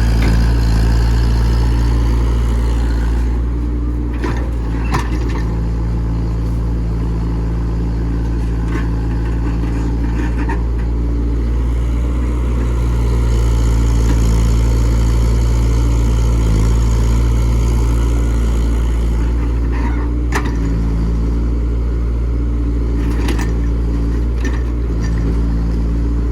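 Komatsu PC68 excavator's diesel engine running steadily, with a few sharp metallic knocks or clanks.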